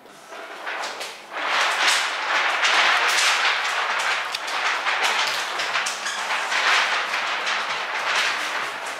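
Large sheet of clear plastic paint protection film rustling and crinkling as it is handled and stretched over a wet windshield. The noise is loud and irregular, swelling about a second in and continuing with uneven crackles.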